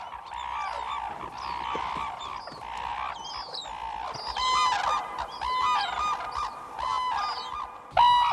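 Flock of red-crowned cranes calling: many trumpet-like cries overlapping. From about four seconds in, louder, clearer calls follow one another closely.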